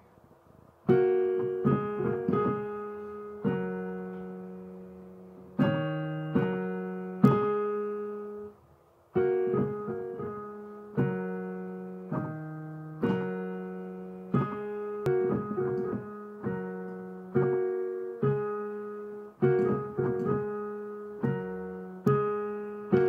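Piano played slowly with both hands, a simple practice exercise of notes and chords, each struck and left to ring and fade, roughly one every second. Playing starts about a second in, with a short break about eight and a half seconds in.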